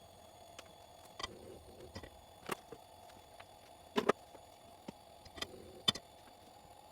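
Spatula clicking and knocking against a wok as rice is stir-fried, about ten irregular sharp taps over a steady hum.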